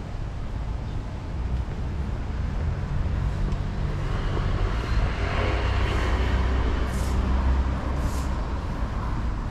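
A motor vehicle passing on the street, swelling to its loudest a little past the middle with a slight drop in pitch, then fading, over a steady low rumble of street traffic.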